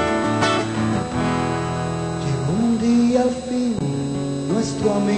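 Steel-string acoustic guitar strummed and picked, playing an instrumental passage of a ballad.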